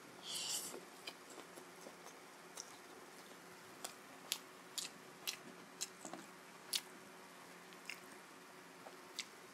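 Close-up eating sounds: a short hissy slurp as a forkful of chow mein noodles goes into the mouth about half a second in, then quiet chewing with scattered sharp clicks.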